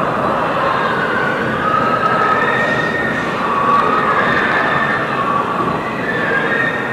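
Many pigs screaming at once inside a slaughterhouse's CO2 gas chambers, heard through the walls: a dense, continuous chorus of high, wavering squeals. The speaker attributes the screaming to pain from the gassing.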